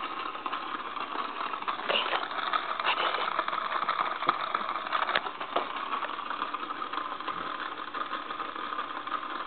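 Battery-powered toy hamster running inside its plastic exercise wheel: a steady, small-motor whir with a light rattle, and a few sharp clicks along the way.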